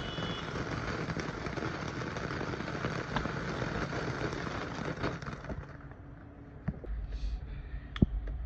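Ground fountain firework spraying sparks with a steady crackling hiss and scattered pops, dying away after about five and a half seconds. Afterwards, a low wind rumble on the microphone and one sharp click near the end.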